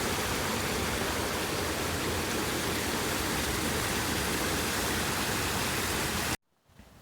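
Steady, even hiss of water, as from a flooded path's running water or rain, that cuts off abruptly near the end.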